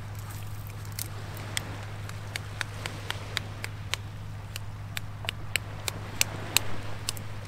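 Irregular sharp clicks and cracks of cooked spider crab shell being cracked and picked apart by hand, a few a second, over a steady low hum.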